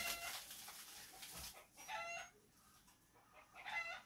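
Chickens clucking: three short, faint calls, one at the start, one about two seconds in and one near the end.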